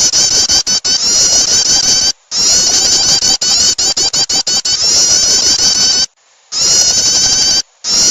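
Recorded prenjak (prinia) calls played as a bird lure: fast, dense trains of high chirps with many notes overlapping. The chirping breaks off briefly about two, six and seven and a half seconds in.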